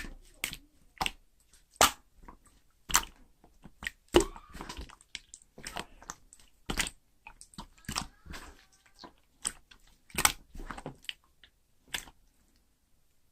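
Slime being squeezed and poked by hand, giving irregular sharp wet pops and squishes, about one or two a second, which stop near the end.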